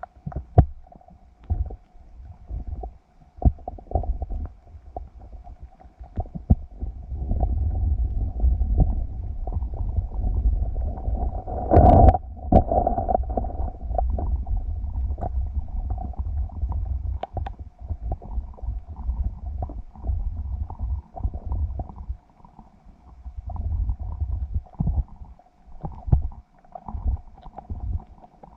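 Muffled low rumbling of water moving around a submerged camera, broken by frequent knocks and clicks, with a steady faint hum throughout. A louder swell comes about twelve seconds in.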